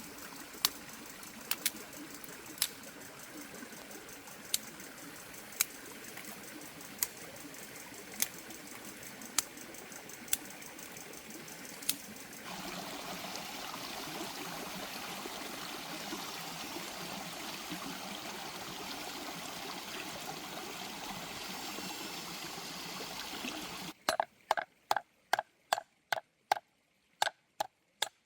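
Water running steadily, with sharp knocks about once a second. About halfway through, a louder steady rush takes over. Near the end it cuts suddenly to a quiet background with a rapid run of sharp, ringing knocks.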